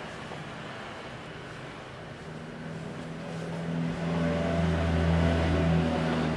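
A motor vehicle's engine passing close by, growing louder over the last few seconds with a deep rumble.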